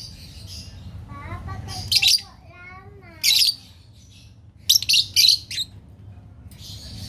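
Fischer's lovebirds giving short, shrill, high-pitched chirps in separate bursts, about five of them, with a pair of calls close together near the middle.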